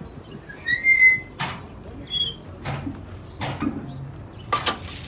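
Two short high-pitched squeaks, about one and two seconds in, among a few dull metal knocks from work on a truck's drum-brake hub; a light metallic jingle starts near the end.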